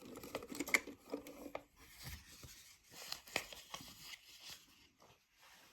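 Paper banknotes being handled and rustled, with small clicks and knocks from the cash register, stopping about four and a half seconds in.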